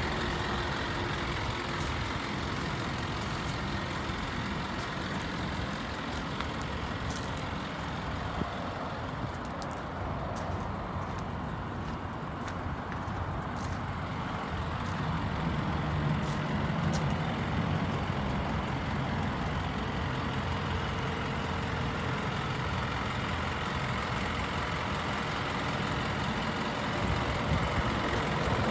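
A truck engine idling steadily, a constant low rumble.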